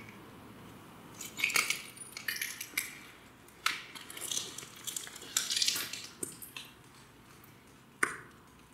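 Broken ceramic tile and plaster rubble crunching and clinking in irregular sharp bursts, starting about a second in, with a last sharp crack near the end.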